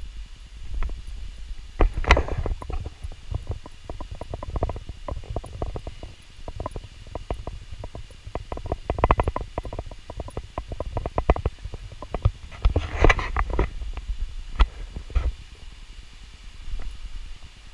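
Footsteps and knocking, rubbing handling noise on a handheld GoPro's microphone while walking, over a steady low rumble. The loudest clusters of knocks come about two seconds in and again around thirteen seconds.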